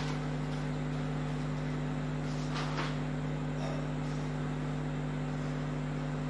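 Steady electrical hum with a low hiss underneath, from the recording. About two and a half seconds in come two short, soft breath-like hisses.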